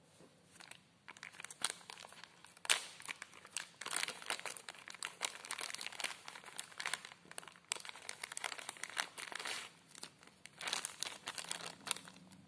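Thin clear plastic bag crinkling as hands turn it over, open it and pull out the knitted doll clothes inside: a run of irregular crackly rustles, with one sharper snap about three seconds in.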